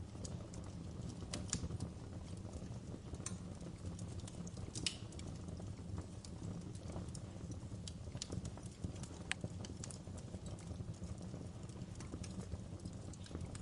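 Wood fire crackling in a fireplace: irregular sharp snaps and pops over a steady low rumble of the flames.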